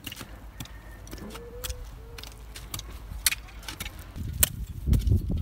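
Hand hoes chopping and scraping into stony soil: scattered sharp clicks and scrapes at an uneven pace. A low rumble builds up near the end.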